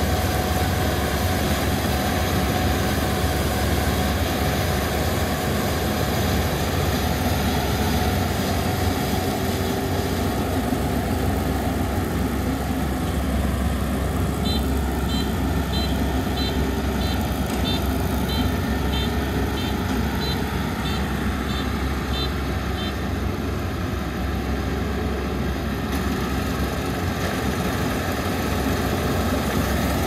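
Kubota ER470 combine harvester running steadily while cutting rice, its diesel engine and threshing machinery giving a deep, even mechanical drone. About midway a string of short high beeps sounds for several seconds.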